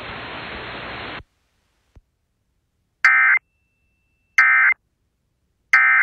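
Radio hiss cuts off about a second in. Then come three short, buzzy EAS digital data bursts about 1.3 seconds apart: the end-of-message code that closes the NOAA Weather Radio tornado warning.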